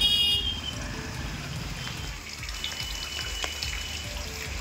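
Steady noise of rain and running water.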